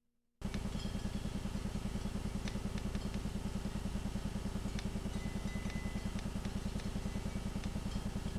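Steady low mechanical drone pulsing evenly about ten times a second, like an idling motor, starting about half a second in, with faint scattered clicks over it.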